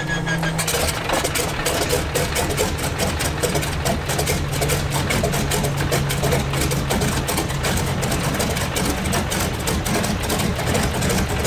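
Stinson L-1's Lycoming R-680 nine-cylinder radial engine catching about half a second in and then running steadily with a rapid patter of firing strokes. It is running on a freshly overhauled magneto, fitted to cure a dead ignition circuit.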